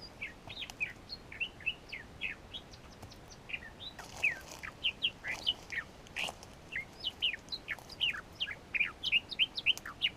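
Small birds chirping: many short, quick, downward-sweeping chirps, several a second and overlapping.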